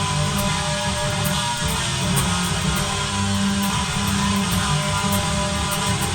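Electric guitar with heavy distortion playing a riff of sustained low notes. The guitar is a 1990s Jackson Kelly KE3 fitted with freshly installed Invader-clone humbucking pickups, heard in a distortion tone test.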